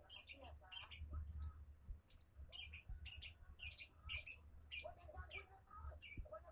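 Lovebird singing its long, continuous chattering song ('ngorok'): a rapid run of high, squeaky chirps, about two or three a second, over a steady low hum.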